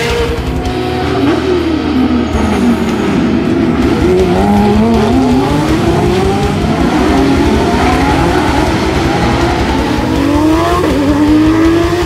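GT race car engines revving hard, their pitch climbing and falling again and again as the cars accelerate and brake through the gears, over background music with a steady beat.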